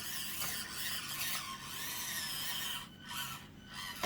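Electric motor and gear drivetrain of an Axial SCX24 1/24-scale RC crawler whining as it crawls over the course. The high whine rises and falls in pitch with the throttle and cuts out briefly about three seconds in.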